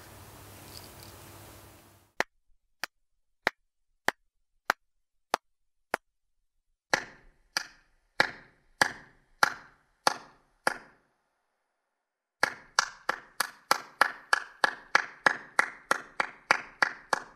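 Recorded hand claps played over loudspeakers: about seven short, dry claps in an open field, then seven claps inside a concrete replica of Stonehenge, each with a fuller 'throck' and a lingering tail made by reflections off the stones. After a short pause comes a fast run of about four claps a second inside the circle, their tails overlapping.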